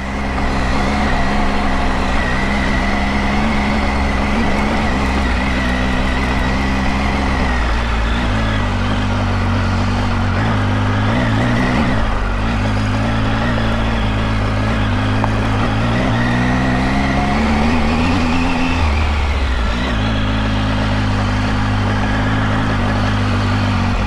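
Triumph Tiger 800's inline three-cylinder engine running at low speed on a dirt track, its revs shifting a few times with the throttle and climbing briefly about three-quarters of the way through before dropping back.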